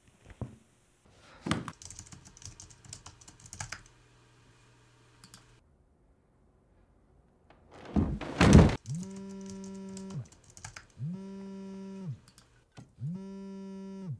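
A smartphone vibrating on a hard desk: three buzzes of about a second each, about two seconds apart, starting near the ninth second, each rising in pitch as the motor spins up and sagging as it stops — an incoming call. Before it, computer keys clatter for a few seconds, and a loud thump comes just before the buzzing.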